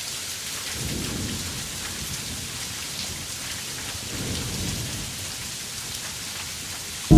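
Steady rain with two low rolls of thunder, about a second in and again past the four-second mark.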